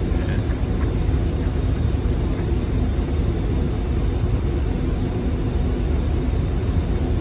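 Steady low mechanical rumble with a faint hum of running air-handling and ventilation machinery, continuous and unchanging.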